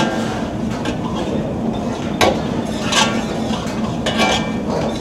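Long metal ladle scraping and knocking against a large iron kadai as dal fry is stirred, with a few sharp clinks about two, three and four seconds in, over steady background noise.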